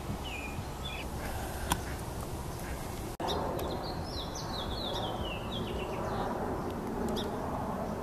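Songbird singing: a run of short notes stepping down in pitch over about two and a half seconds, with a few shorter chirps near the start, over a steady low background rumble.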